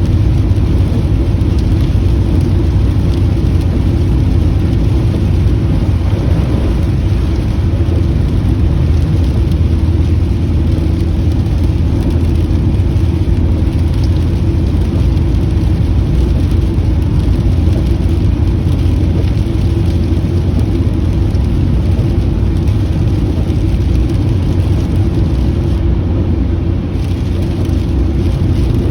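Steady low road and engine drone inside a moving car's cabin, with rain falling on the car.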